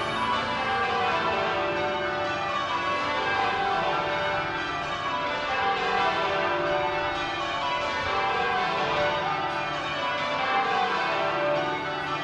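Change ringing on the bells of Westminster Abbey: a full peal of church bells striking in continuous overlapping rounds, their ringing tones blending without a break.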